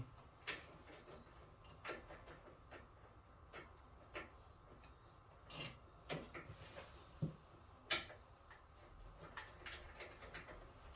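Scattered light clicks and taps, about a dozen at irregular intervals, from small tools and parts being handled during boiler work, over faint background noise.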